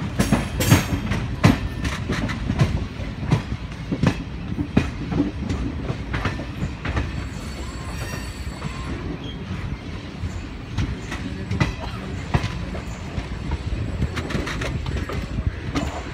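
Indian Railways passenger coaches rolling through a station yard, the wheels clattering in irregular clicks and clunks over rail joints and points above a steady low rumble. The clatter is heaviest near the start and again near the end.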